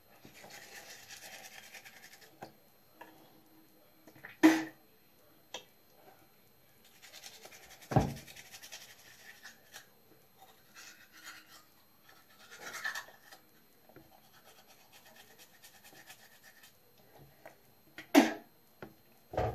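Toothbrush scrubbing teeth in stretches, with a few sharp knocks; the loudest knock is about eight seconds in.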